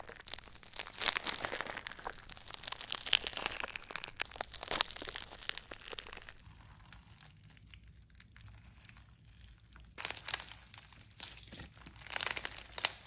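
Dense crinkling and crackling from something being handled. It falls quiet about six seconds in and starts again around ten seconds.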